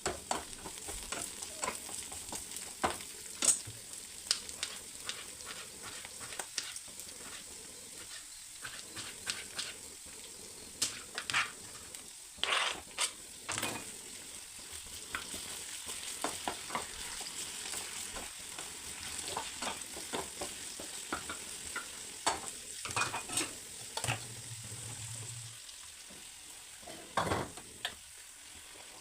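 Food frying in oil in a pan, with a steady high sizzle. A spatula stirs it, giving frequent scraping clicks against the pan, in heavier clusters now and then.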